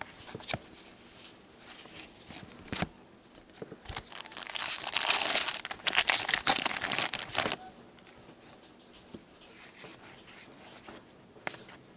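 A card pack's wrapper being torn open and crinkled, a dense crackling that lasts about three and a half seconds in the middle. Softer card shuffling and handling sounds come before and after it.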